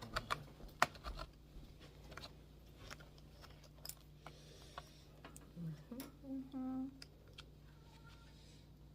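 Scattered small clicks and taps of hand tools against a computer's casing as it is being pried open, several in the first second and a few more later. A person gives a short hum about six seconds in.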